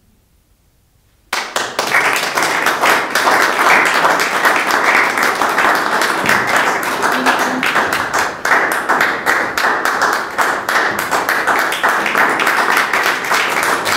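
Small audience applauding: after a moment of silence the clapping starts suddenly about a second in and keeps up steadily.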